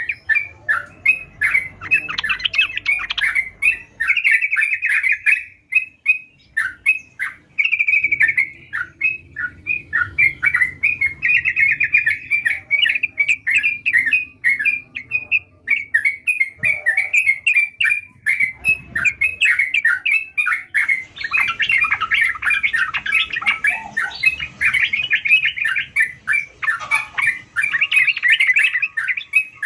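Yellow-vented bulbul (trucukan) singing vigorously in a rapid, unbroken stream of short chirping notes, busiest and loudest in the last third.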